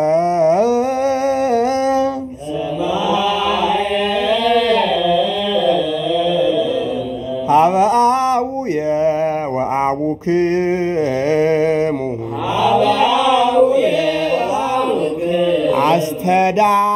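Ge'ez liturgical chant (zema) of the Ethiopian Orthodox Church: a solo voice sings a long melismatic hymn line for the season after Pentecost, holding notes and ornamenting them with wavering turns, with short breaks for breath.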